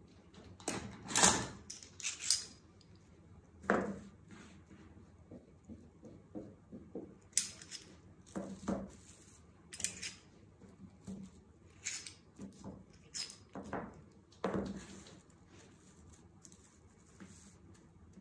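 Scissors cutting medium-weight silk: irregular sharp snips and rustles, about one every second or so, loudest near the start.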